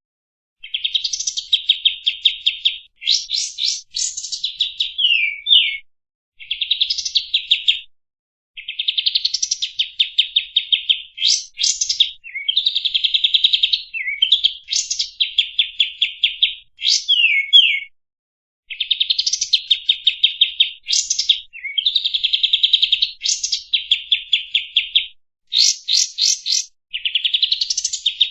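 Pied triller (kapas tembak) singing: phrase after phrase of fast, rapid-note trills, each one to three seconds long with short gaps between, some ending in quick sharp up-and-down notes.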